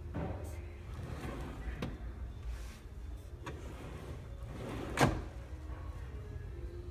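Solid-wood cabinet drawer on soft-close slides being pushed shut, running along its slides and seating with one thump about five seconds in.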